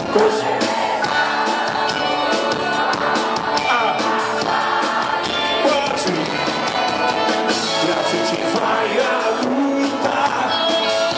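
Live rock band playing through a PA system: electric and bass guitars over drums with frequent cymbal hits, a voice singing over it, and a crowd faintly audible underneath.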